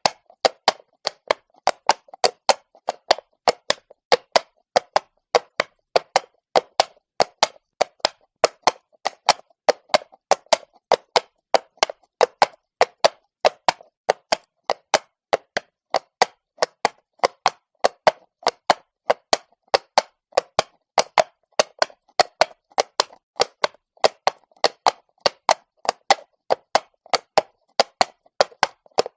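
Horse's hooves clopping on cobblestone at a walk: sharp, hollow strikes in a steady, even rhythm of about three a second.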